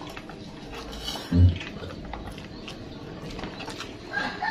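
Eating by hand: fingers working rice on a plate and chewing, with small clicks and a short low thump about a second and a half in. Near the end a rooster starts crowing.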